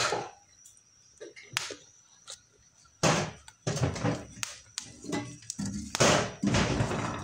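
Toasted maize kernels and groundnuts rattling and scraping in a frying pan as they are stirred with a dried corncob. Only a few faint clicks come first; the stirring starts about three seconds in.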